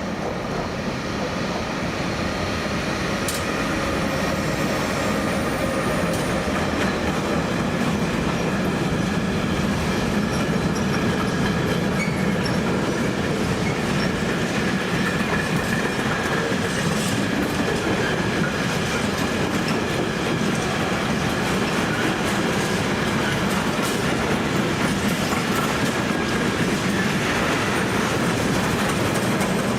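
A train running past on the tracks for the whole stretch, its wheels clattering over rail joints, with a thin wheel squeal at times. It grows a little louder over the first few seconds, then holds steady.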